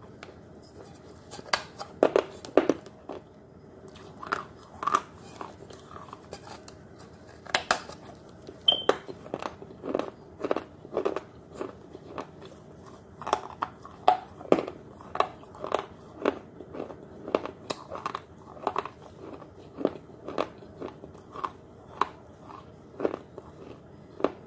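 Hard, brittle edible clay pot being bitten and chewed: sharp crunches as pieces snap off and grind between the teeth, irregular, about one or two a second, starting about a second and a half in.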